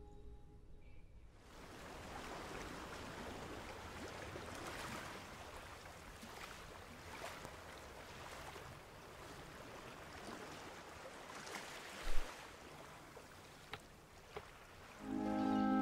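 Small sea waves washing onto a beach: a steady hiss that swells and falls every second or two. A single sharp thump about twelve seconds in, then a couple of faint clicks.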